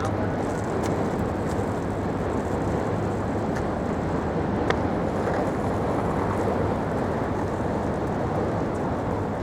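Steady low rumble of distant motor vehicles with a constant low hum underneath, and one faint tick about halfway through.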